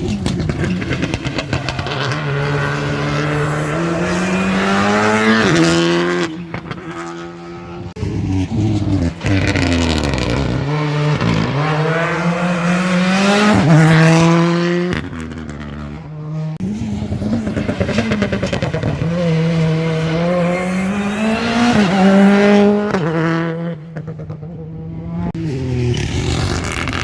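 Rally cars driven flat out, engines revving hard: the pitch climbs through each gear and falls back at the shifts and lifts, over several long pulls.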